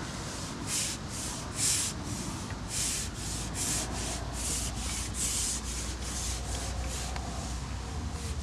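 Rhythmic rubbing or scraping strokes, about two to three a second, each a short hiss, over a steady low rumble.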